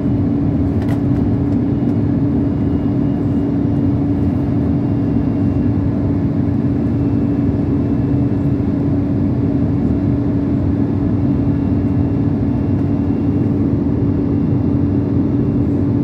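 Steady cabin noise of a jet airliner in cruise, heard from a window seat: an even rush of engine and airflow noise with a constant low hum.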